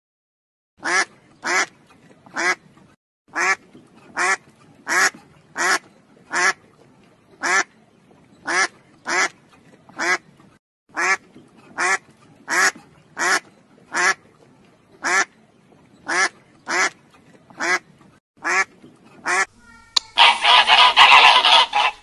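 Domestic duck quacking repeatedly: about twenty short quacks, one every half second to second. Near the end comes a loud burst of noise lasting about two seconds.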